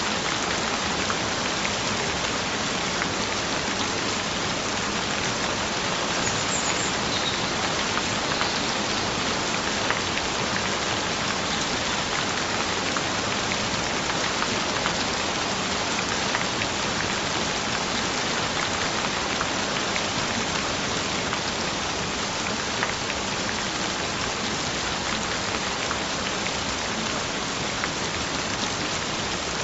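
Gentle rain falling steadily on a surface: an even hiss with faint scattered drop ticks, unchanging throughout.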